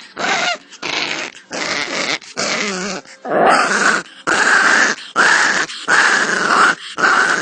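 Growl-like animal sound in rough, breathy bursts, a little more than one a second.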